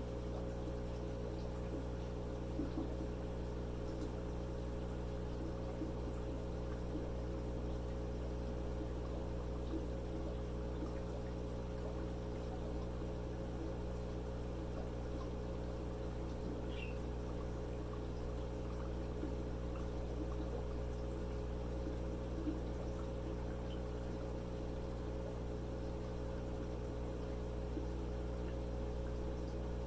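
Aquaculture 20-60 diaphragm air pump running with a steady hum, its air bubbling up through water to fill an upturned quart container.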